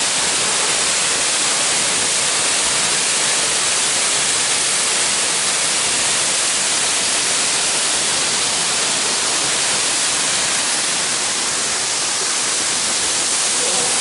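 A small jungle waterfall cascading down a rock face: a steady rush of falling water, bright and hissy.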